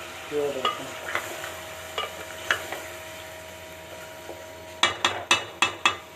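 A spoon stirring chicken and tomatoes in a sizzling aluminium pot, with light scrapes and clicks against the metal. Near the end comes a quick run of about six sharp taps on the pot.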